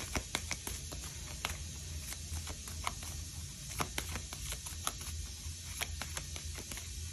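Scattered light clicks and taps of oracle cards being shuffled and handled on a table, at irregular intervals over a steady low hum and hiss.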